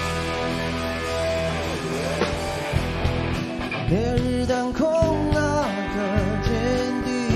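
Live rock band playing: held chords over drums, and about four seconds in a male lead vocalist starts singing over acoustic guitar.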